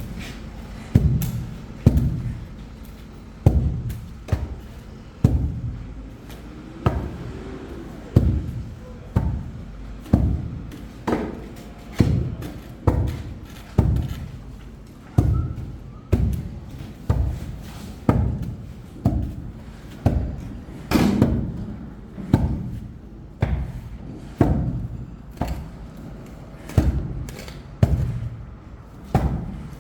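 A long series of dull thuds, about one a second and unevenly spaced, each dying away quickly.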